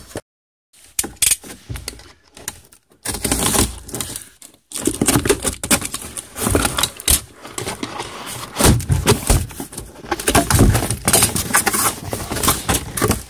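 Cardboard box being opened by hand: flaps pulled and torn apart, the cardboard scraping and crackling in a loud, irregular string of rustles and clicks.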